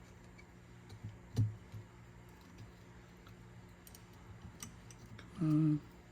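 Small clicks and taps of metal parts being handled and fitted into a cassette deck's tape transport mechanism, with one louder knock about a second and a half in. Near the end a short hum of a voice.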